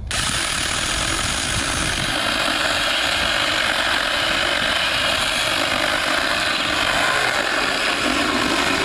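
Mini cordless electric chainsaw starting suddenly and then running steadily under power, its chain cutting into a branch.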